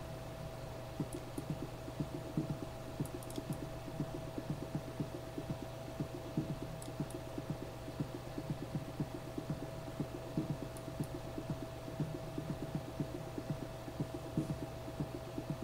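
Soft, irregular tapping, several taps a second, over a steady electrical hum and a faint high steady tone, with a few light sharp clicks among the taps.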